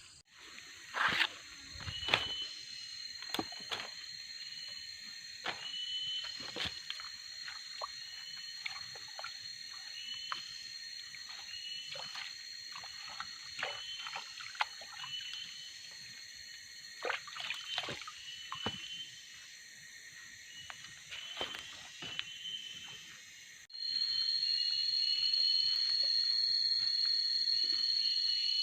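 Tropical forest stream ambience: a steady high insect drone, a short chirping call repeated about once a second, and scattered knocks and small water splashes. Near the end the drone jumps abruptly louder.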